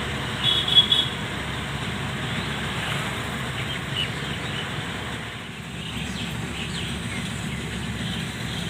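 Diesel engine of farm machinery running steadily. A short high-pitched sound comes about half a second in, with a few faint high chirps later.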